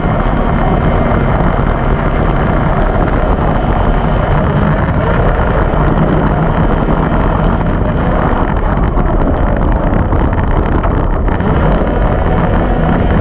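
Arctic Cat Wildcat XX race side-by-side running hard at racing speed, heard from inside the cab, loud and steady, with wind buffeting the microphone.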